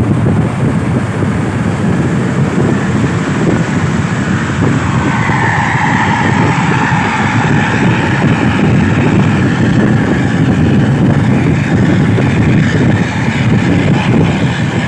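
A bus's basuri telolet horn plays a wavering snake-charmer-style tune. It comes in about five seconds in over a heavy rumble of bus engine and road noise, then carries on more faintly.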